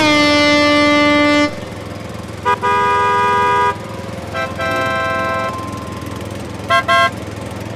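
Cartoon vehicle horn honking over a steady low engine rumble: one long honk, then a short toot and a longer two-note honk, another honk, and two quick toots near the end.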